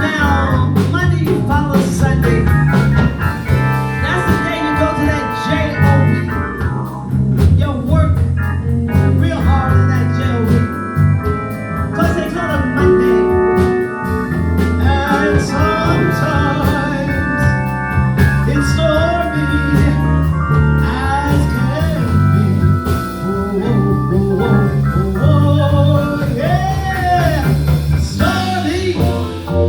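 Live blues band playing a slow instrumental break, with no vocal line.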